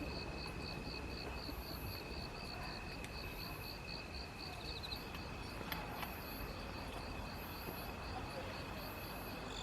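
Crickets and other insects chirping: a steady high trill with a second insect pulsing in regular chirps about three times a second.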